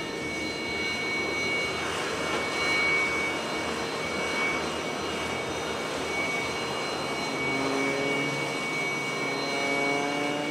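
Sukhoi Su-30MKM's twin AL-31FP turbofans running on the ground: a steady rush with a constant high turbine whine, and a few slowly rising tones joining in about seven seconds in.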